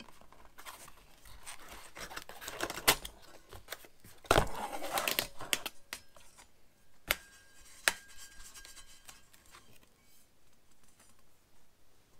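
Saw blade packaging being handled: rustling and crinkling, loudest about four seconds in, then two sharp clicks about seven and eight seconds in.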